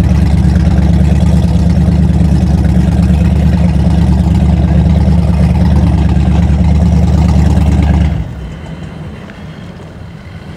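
A boat engine idling with a loud, steady low drone that cuts off abruptly about eight seconds in, leaving a much quieter background.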